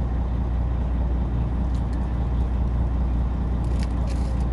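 Fishing boat's engine running with a steady low hum, and a few light clicks near the end.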